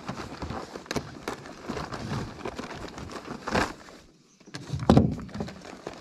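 Scattered knocks and rustling of handling aboard an aluminium jon boat, with a louder thump about three and a half seconds in and another about five seconds in.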